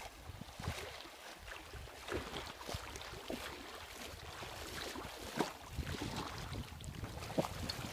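Water splashing and sloshing around a person's legs as they wade through shallow seawater, in uneven steps with a few louder splashes.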